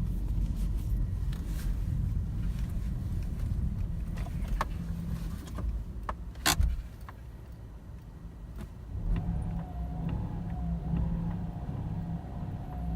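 Subaru Impreza's flat-four boxer engine idling with a steady low rumble and a few sharp clicks, the loudest about six and a half seconds in. The owner hears a knock at idle that comes up when the throttle is blipped and seems to go away under load.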